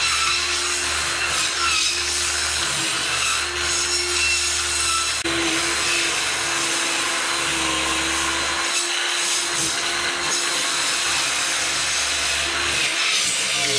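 A handheld power tool's motor runs continuously as it cuts a recess and wire channel into foam insulation board, a steady hum over a dense rasping noise. Its pitch wavers a little as the load changes, stepping up about five seconds in.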